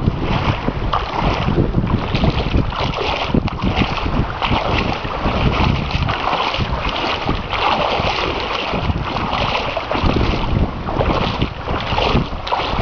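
Wind buffeting the microphone: a loud, uneven rumbling rush with no break.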